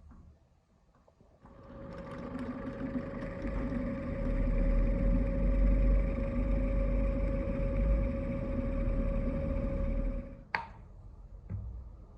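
A small electric motor runs steadily with an even hum. It starts about a second and a half in and stops shortly before the end, followed by a sharp click.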